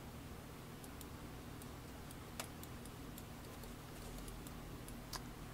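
Quiet room tone with a steady low hum, broken by a few faint, short clicks; the two clearest come about two and a half and five seconds in.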